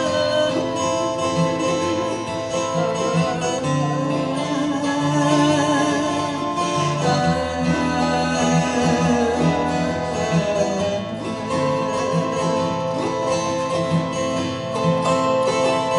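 Acoustic guitar strummed together with an autoharp, an instrumental passage of a live acoustic folk song.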